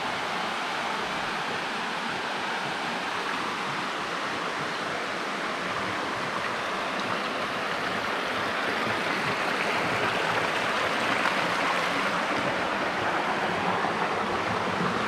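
Water of a shallow stream and small waterfall rushing steadily, growing a little louder and brighter about halfway through.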